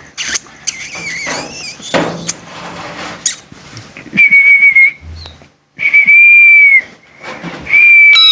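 Three long, steady, high-pitched whistles, each about a second long, the middle one dipping slightly as it ends. Before them come quieter warbling chirps and some rustling.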